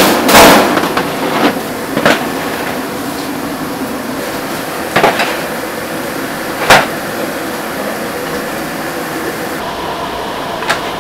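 Aluminium steamer lid lifted off a stack of steamer tiers, with a loud rush of noise in the first second as the steam escapes. It is followed by several sharp, separate metal clanks as steamer trays are handled and set down, over steady background noise.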